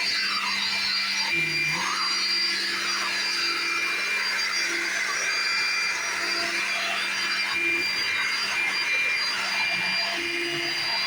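Vacuum cleaner running steadily, a hissing rush of air over a whining motor, with its tone dipping briefly three times.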